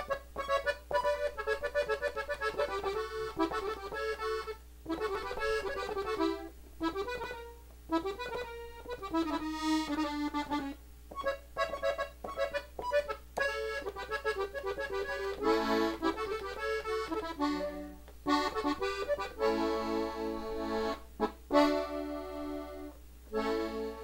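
Gabbanelli three-row button accordion, tuned in E, playing the closing passage of a norteño song in D. It begins with a quick single-note melody with runs and trills, and about two-thirds of the way through it turns to short repeated chords.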